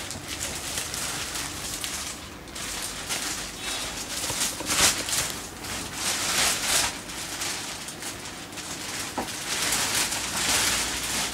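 Clear plastic wrapper crinkling and rustling in irregular bursts as a motorcycle tank bag is pulled out of it. The loudest crinkles come about five seconds in and again near the end.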